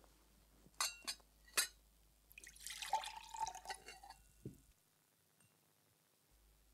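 Three sharp clinks of glass in the first two seconds as a stoppered glass bottle is handled, then about two seconds of liquid pouring with a ringing glass tone, ending in a soft knock.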